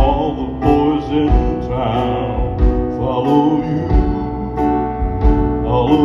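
Male gospel quartet singing in close harmony into handheld microphones, amplified live, with piano accompaniment and a steady low beat underneath.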